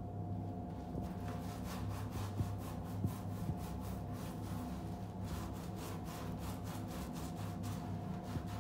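Mesh bath pouf scrubbing soapy skin in quick, rhythmic back-and-forth rubbing strokes, over a steady low hum.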